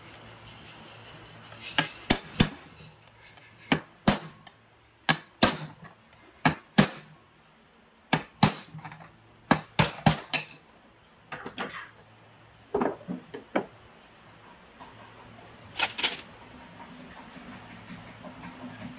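Irregular sharp metallic clinks and knocks, some in quick pairs, from metal tools and small engine parts being handled and set down. There is a short lull about two-thirds of the way in.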